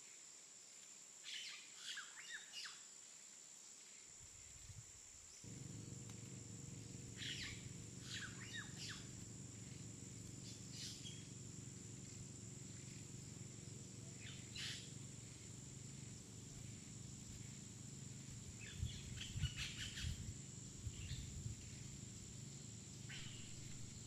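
Birds chirping in short, scattered calls over faint steady background noise. A low steady hum joins in about five seconds in.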